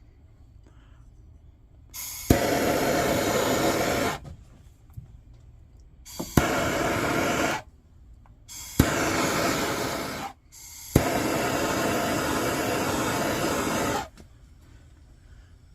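Butane torch lighter clicked and fired four times, each burst a sharp click followed by a loud steady hiss that cuts off suddenly, used to burn in a new lantern mantle.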